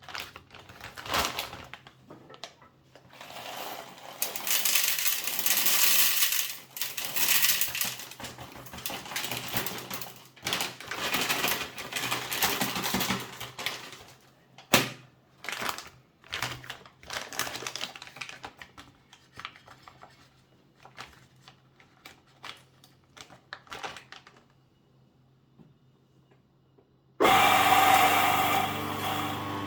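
Irregular clattering and rattling handling noises over a faint low hum, then near the end a Mahlkönig W401 commercial coffee grinder's motor starts suddenly and runs steadily, loudest at first and settling a little after about a second.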